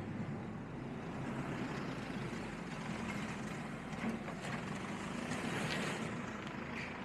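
Street ambience with a small flatbed truck's engine running on the slope, a steady mix of engine and traffic noise.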